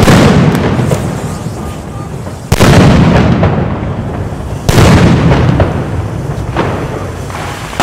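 Firecrackers going off on the ground: two sudden loud bangs about two seconds apart, near the middle of the stretch, each followed by dense crackling that fades over a couple of seconds. The tail of an earlier one is still dying away at the start.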